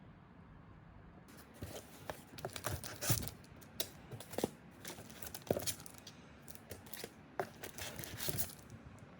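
A series of sharp crinkling, rustling crackles, like something being crumpled and torn, starting about a second in and stopping near the end.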